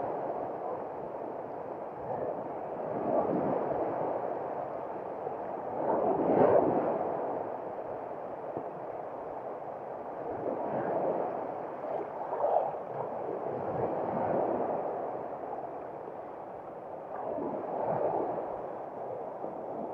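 Small waves breaking and washing up the shore close by, the rush of water swelling and fading every few seconds.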